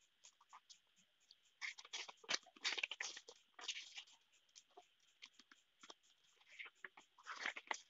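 Paper instruction leaflet being handled and unfolded by hand: irregular rustling and crinkling in short clusters, with scattered small clicks between them.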